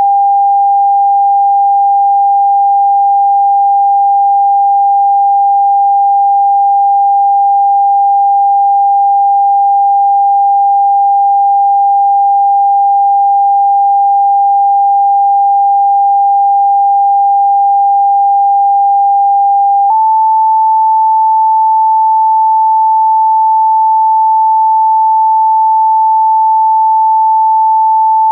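Electronically generated pure sine tone used as a Rife frequency, held perfectly steady, then switching abruptly to a slightly higher steady tone about two-thirds of the way through, with a faint click at the change.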